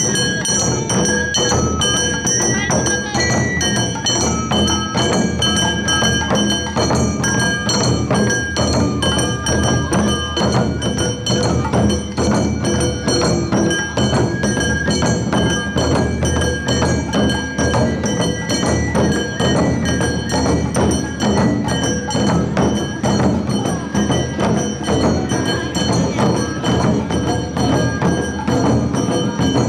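Awa odori music from a narimono band: drums beating a steady repeating rhythm under the ringing of metal hand gongs (kane).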